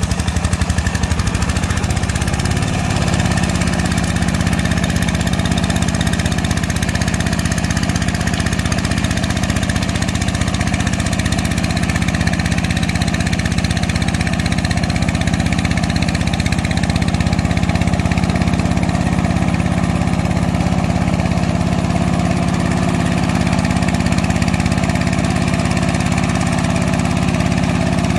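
Hand tractor (motor plough) engine running steadily under load as it works through a muddy paddy field. The pitch rises a little about two to three seconds in, then holds steady.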